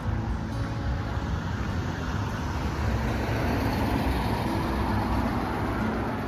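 A road vehicle passing close by on a street: engine rumble and tyre noise swell to a peak a few seconds in, then ease off.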